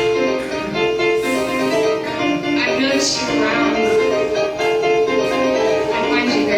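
Music: a melody of short, stepping notes on a keyboard instrument, with no bass line.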